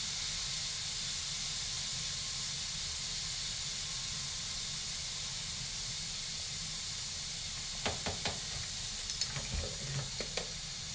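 Pressure cooker hissing steadily as steam vents from its valve. Near the end, a run of short clicks and knocks as the cooked spider crab's shell and legs are handled in a glass bowl.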